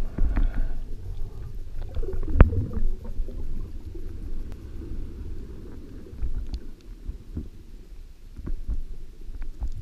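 Muffled, irregular low rumble of water moving around an underwater camera housing, with scattered small clicks and one sharp knock about two and a half seconds in.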